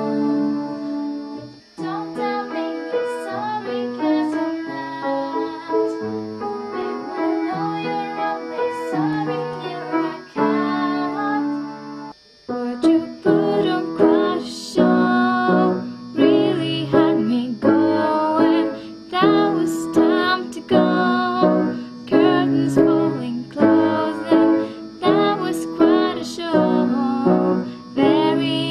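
Piano played with both hands, chords under a melody, with a female voice singing along.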